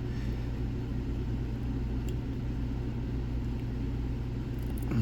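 Steady low hum and rumble with a few faint, light ticks of a pick working against lock pins.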